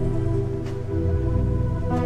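Background music: slow, sustained chords that change about a second in and again near the end.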